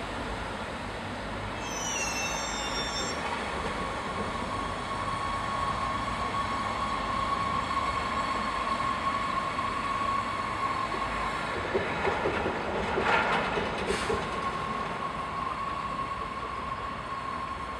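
SNCF TER AGC railcar pulling away from the station, with a steady whine. Its wheels clatter over rail joints or points about twelve to fourteen seconds in.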